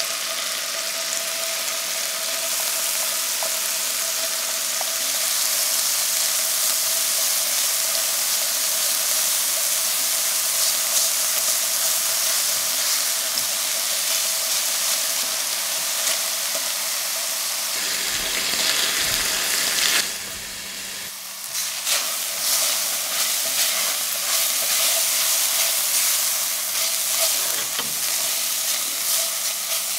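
Diced chicken and chopped shallot sizzling in olive oil in a stainless steel frying pan, with a spatula stirring and scraping across the pan. The sizzle dips briefly about twenty seconds in, then picks up again.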